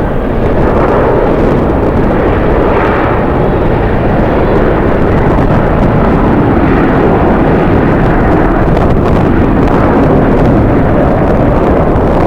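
Steady, loud jet airliner engine noise mixed with strong wind buffeting the microphone.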